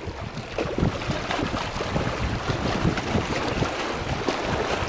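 Wind buffeting the microphone in uneven gusts over small waves lapping against a rocky shore.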